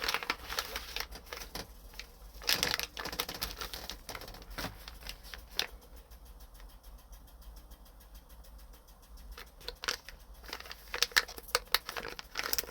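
Hands rummaging through the contents of an opened package: scattered clicks, taps and crinkles of packaging being handled. A busy spell comes a few seconds in and again near the end, with a quieter stretch in between.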